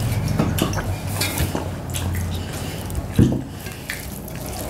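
Small clinks and scrapes of tableware as people eat by hand from metal and ceramic plates and bowls, a drinking glass set down on the table among them. One brief louder knock about three seconds in.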